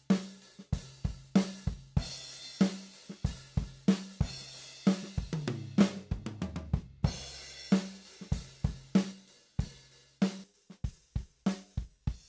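Multitrack drum-kit recording playing back: kick, snare, hi-hat and cymbals in a steady groove.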